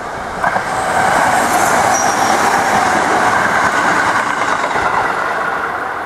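Sanyo Electric Railway train passing close by on the line. The noise swells about half a second in and fades near the end, with steady ringing tones over it.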